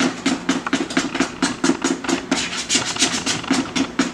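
Thick cake batter being stirred fast by hand in a plastic mixing bowl: quick, rhythmic scraping strokes, about four or five a second. The batter is boxed cake mix mixed with Coke.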